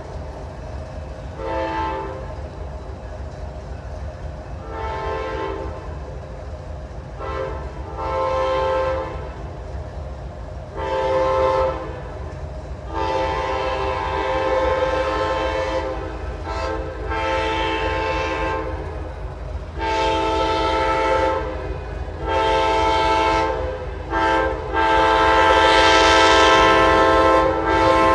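Diesel locomotive air horn sounding a series of chord blasts, short and spaced at first, then longer and closer together, growing louder toward the end as the train approaches. A steady low rumble of locomotive and rail noise runs beneath.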